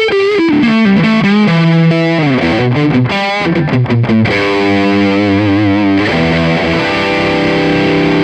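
Distorted electric guitar lead played through a Peavey Bandit Supreme Teal Stripe preamp pedal: fast descending runs, then held notes with vibrato from about four seconds in, ending on a long sustained note.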